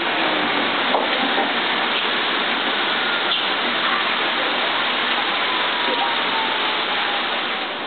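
Leaf casting machine running: a loud, steady rushing, water-like noise as water is drawn down through the screen under the leaf. A motor hum cuts off right at the start.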